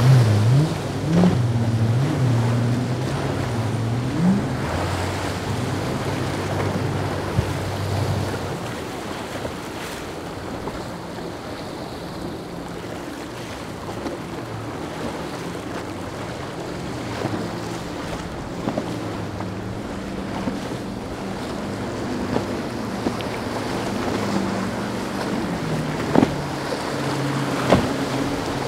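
Powerboat engines running hard through rough inlet waves, the engine note rising and falling strongly over the first several seconds and then fainter under the rush of spray and wind on the microphone. Two sharp thumps come near the end.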